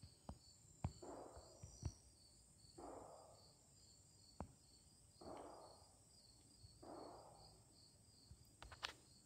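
Insects chirping steadily in an even pulsing rhythm. Four soft swishes come about two seconds apart, with a few light clicks.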